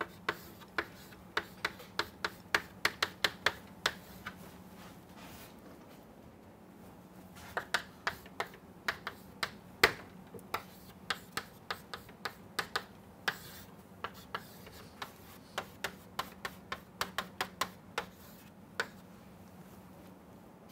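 Chalk tapping and clicking against a chalkboard as equations are written: sharp clicks in quick runs, with a pause of a few seconds near the start.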